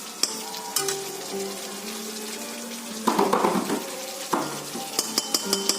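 Fish frying in a pan for curry, with a spatula stirring and knocking against the pan: a few clicks near the start, a louder stretch of sizzling and stirring about halfway through, and a quick run of clinks near the end.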